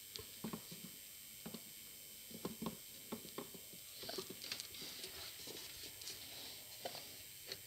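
Faint, scattered clicks and light knocks of the mixer's blade and clutch assembly being handled and fitted back into its stainless-steel jug, with a brief soft rustle about four seconds in.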